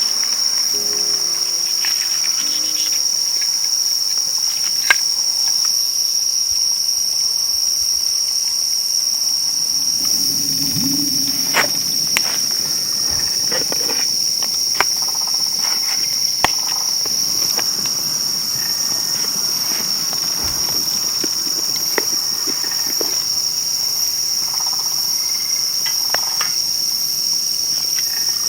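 A dense chorus of crickets and other late-summer insects, a steady high-pitched trill that does not let up. Scattered sharp clicks and light knocks sound now and then.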